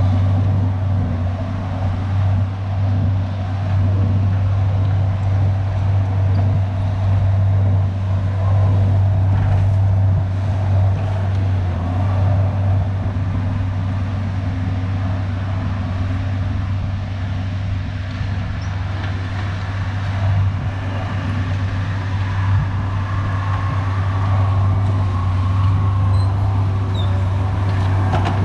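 Diesel engine of a tracked earthmoving machine running steadily under working load, a constant low drone with mechanical noise over it.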